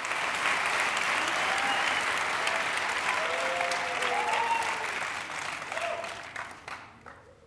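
Audience applauding, with a few voices calling out over it, the applause dying away near the end.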